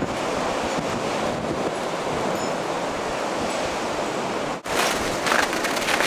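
Blizzard wind blowing steadily, heavy with wind noise on the microphone. About four and a half seconds in it cuts out for an instant and comes back rougher, with gusts crackling against the microphone.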